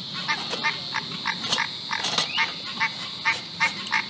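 A chorus of frogs calling, short croaks repeating about three times a second, over a steady high insect drone.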